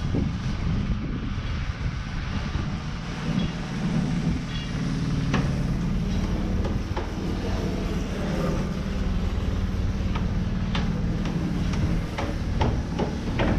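Construction-site background noise: a steady low rumble with scattered sharp knocks, coming more often near the end.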